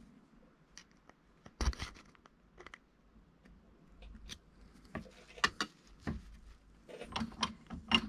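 Irregular light clicks and knocks from handling a mountain-bike rear shock and the camera on a workbench. The sharpest comes just under two seconds in, and more follow in clusters in the second half.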